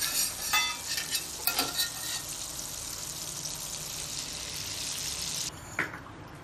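Butter and oil sizzling as they heat in a kadai, a steady high hiss with a few metallic clinks in the first two seconds. The sizzle cuts off suddenly about five and a half seconds in.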